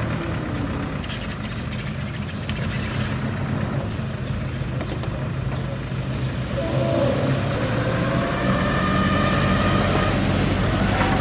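Heavy diesel engine of construction equipment running steadily. About seven seconds in a higher whine joins and rises a little as the engine works harder.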